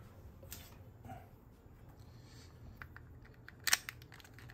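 Dummy brass shells being pressed into the plastic magazine of a toy shell-ejecting Glock replica: a few faint plastic clicks and one sharper click near the end.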